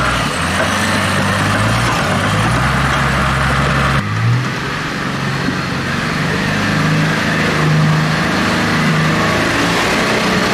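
Toyota Land Cruiser HDJ80's 4.2-litre turbo-diesel engine working under load as the truck crawls up a muddy rut, its revs rising and falling with the throttle.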